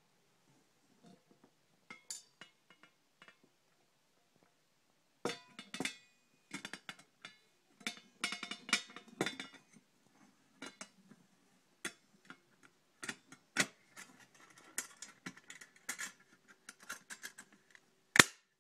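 Stainless steel camping cook pot and its kit being handled: irregular clinks, knocks and rattles of metal on metal, some briefly ringing, with a sharp clack just before the end.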